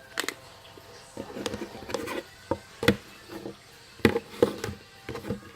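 Handling noise: scattered clicks and knocks of small objects being picked up and set down, with two short rustling, scraping stretches.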